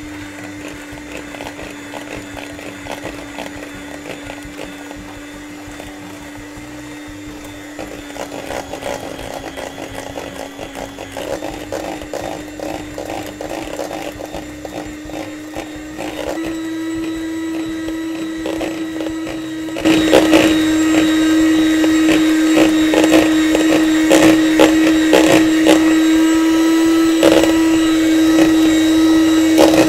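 Electric mixer motor running steadily, whipping cream with sugar toward chantilly. Its speed steps up a few times and it gets clearly louder about two-thirds of the way through, then the motor winds down as it is switched off at the very end.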